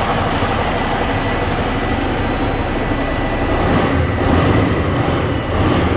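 Rebuilt diesel engine of a Freightliner Columbia truck running on its first start after the rebuild: a steady, heavy rumble that swells a little about four seconds in.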